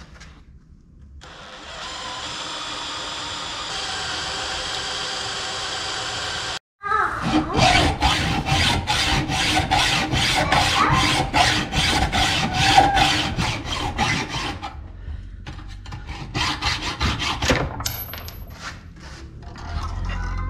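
A cordless drill runs steadily as a small bit drills a pilot hole into a steel bolt head. After a sudden break, a hacksaw cuts through the steel bolt in quick, even strokes, about three a second, which turn sparser and uneven near the end.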